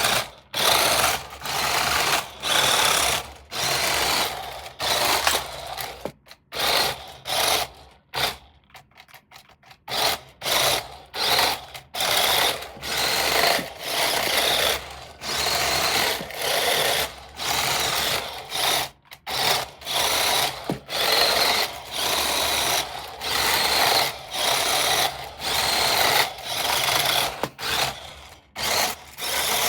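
Toy RC car's small electric motor whirring in repeated short bursts, roughly one a second, as the throttle is worked on and off, with a quieter pause about eight seconds in.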